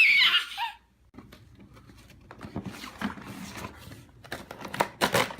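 A brief high-pitched squeal at the start, then quiet rustling and small clicks of cardboard packaging as a toy box is opened.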